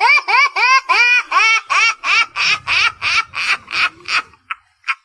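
High-pitched laughter: a quick, even run of about fourteen 'ha' syllables, each rising and falling in pitch. It turns breathier and fades away after about four seconds.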